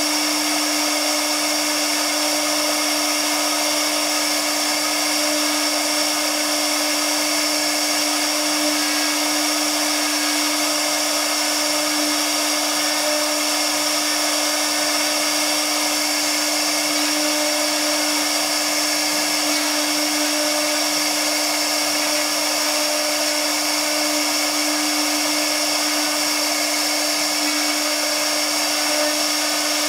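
Tiptopcnc 1325 CNC router spindle running and carving MDF board with a tapered bit: a steady whine over an even hiss of cutting, with no change in pitch or level.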